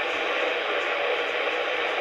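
Steady static hiss from a NOAA weather radio receiver, with no voice or alert tones coming through.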